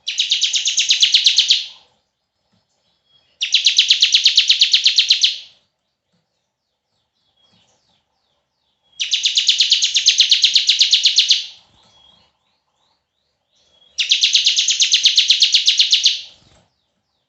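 Bar-winged prinia (ciblek) giving its 'bren' call: four long, rapid, buzzy rattling trills of about two seconds each, separated by short pauses.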